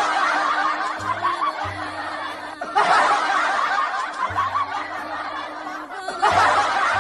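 Many people laughing together, swelling in waves about three times, over background music.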